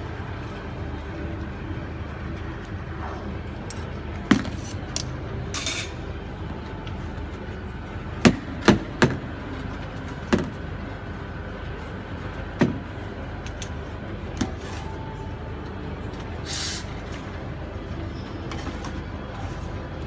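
Sharp metallic knocks and clinks of barista work at a stainless-steel espresso counter, with a cluster of them in the middle, over a steady hum from the café and espresso machine. Two brief hisses come about six seconds in and again near the end.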